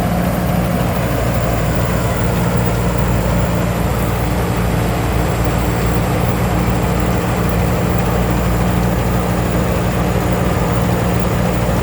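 Somboon Phatthana 2019 rice combine harvester running steadily while harvesting: a constant engine drone with an even low hum and a thin, steady high whine over it.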